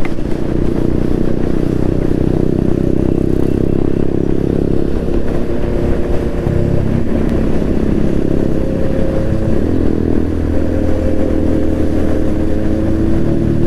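Motorcycle engine running steadily while riding, with the engine note changing about ten seconds in.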